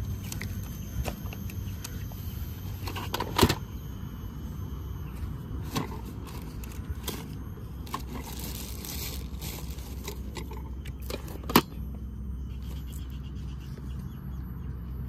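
Picnic gear being handled in a plastic storage crate: scattered clicks and knocks of metal and plastic items, including a metal sandwich toaster being lifted out, with a plastic bag rustling. Two knocks stand out, a few seconds in and past the middle, over a steady low rumble.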